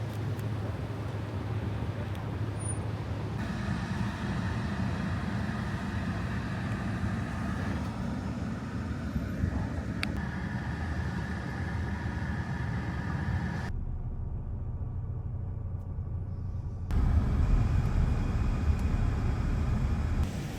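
Steady engine rumble with outdoor background noise, with a high whine held through the middle and a louder, deeper rumble near the end.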